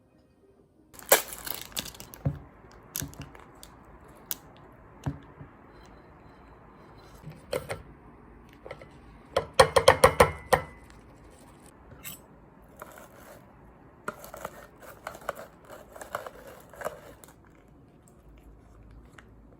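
Handling noises: rustling and tearing with scattered sharp clicks and knocks, and a quick run of loud taps about halfway through.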